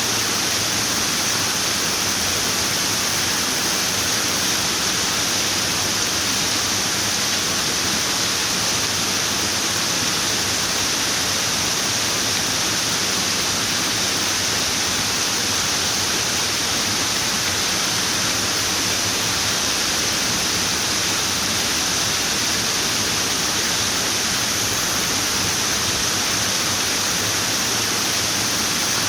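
Running water: a steady, unbroken rush with no change in level.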